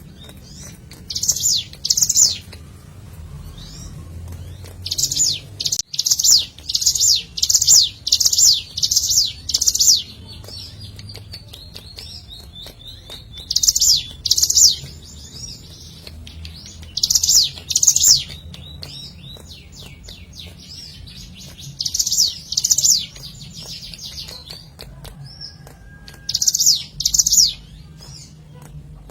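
Ciblek gunung (a prinia) singing: quick runs of two to six sharp, high, downward-sweeping chips, repeated in bursts with short pauses between them.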